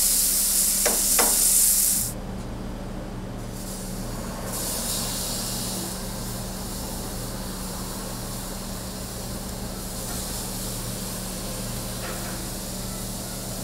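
Beef steak sizzling loudly on a hot grill, with two light clicks about a second in. About two seconds in the sizzle drops away abruptly, leaving a steady low hum and a fainter hiss.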